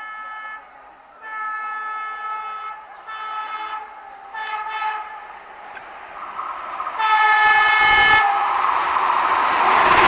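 Train 18 (Vande Bharat Express) trainset sounding its chord horn in a string of blasts as it approaches at speed: a long blast, two short ones, then a louder long blast about seven seconds in. The horn is followed by the rising rush of the train passing at high speed.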